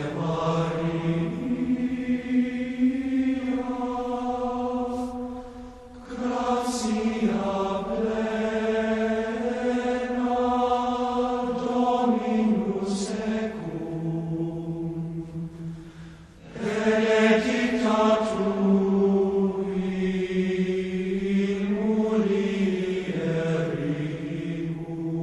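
Slow chant sung by male voices: long held notes in phrases, with short breaks about 6 and 16 seconds in.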